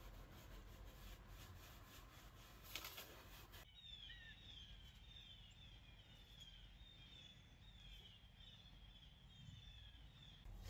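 Near silence: faint background hiss. From about four seconds in, faint short high chirps slide downward and repeat.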